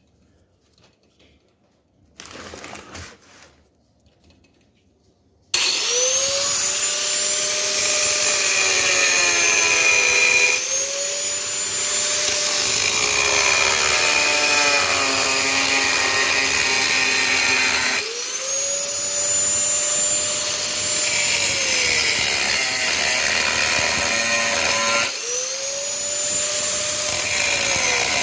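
A brief handling rustle, then about five seconds in a high-speed power tool starts abruptly and runs loudly. Its whine sags and picks up again several times as the load on it changes while it cuts or grinds into aluminium.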